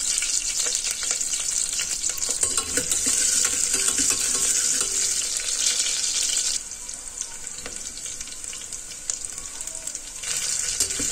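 Onion tempering sizzling in hot oil with mustard seeds in a steel pressure cooker, with a steel ladle clinking and scraping against the pot as it is stirred. The sizzle drops away for a few seconds past the middle and comes back just before the end.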